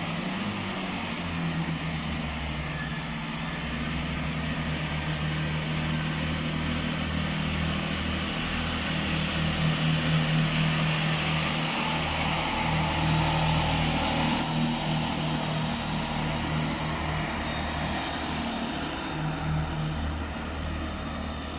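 Great Western Railway Class 165 diesel multiple unit pulling out and passing, its underfloor diesel engines running steadily under a haze of wheel and rail noise. It is loudest about halfway through as it goes by, and eases off near the end as it moves away.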